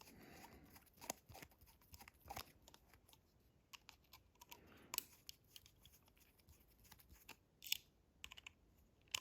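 Faint, irregular light clicks and taps of small parts being handled on a workbench, with a slightly louder click about three quarters of the way through.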